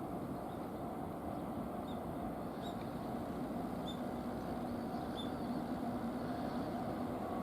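Steady rumble of an approaching freight train, with a hum that grows slowly louder toward the end. A few faint, short high chirps are scattered through it.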